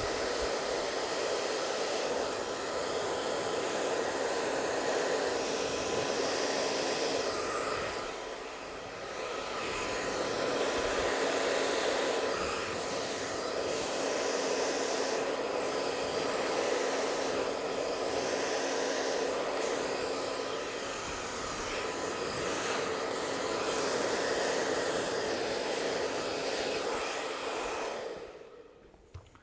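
Hand-held hair dryer blowing steadily while drying short hair, briefly quieter about eight seconds in, then switched off near the end.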